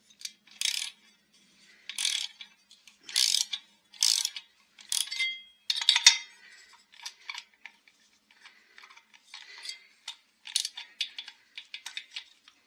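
Metal hand tools working on the chainsaw's barrel bolts: short metallic clicks and scrapes about once a second. There is one ringing clink about five seconds in, then quicker, lighter clicking.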